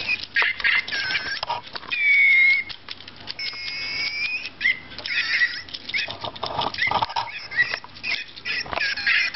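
Several Tomy Micropets robot toy animals running at once, making a racket of electronic chirps, warbles and beeps over many small clicks and clatters. A loud steady beep sounds about two seconds in.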